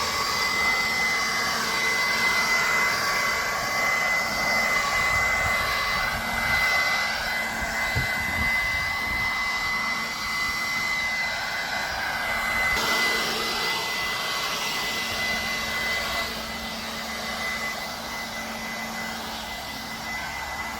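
Wild Badger Power 20V cordless leaf blower running steadily: an even high whine over a rush of air, a little quieter in the last few seconds.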